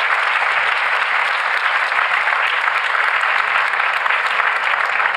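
Audience applauding steadily: the dense patter of many hands clapping.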